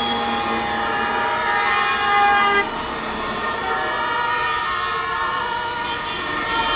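Sirens and horns of several parked fire engines sounding together in overlapping steady tones, over heavy trucks driving past. A loud horn tone cuts off about two and a half seconds in.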